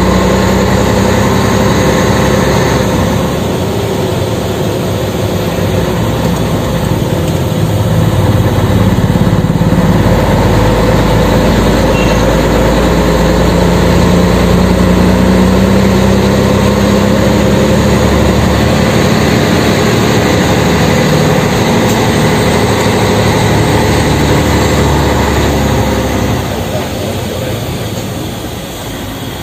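Scania 113M 320 truck's inline-six diesel running under a heavy load, a crawler crane on a dolly trailer. The engine note rises slowly in pitch around the middle and eases off in loudness near the end.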